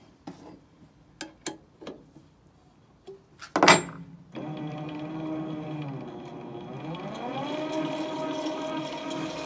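Metal knocks and clicks, then one loud clunk, as the welding positioner's chuck head is tipped over by hand. The positioner's electric gearmotor then starts and runs with a steady hum. Its pitch drops and then climbs again as the speed is turned down and back up.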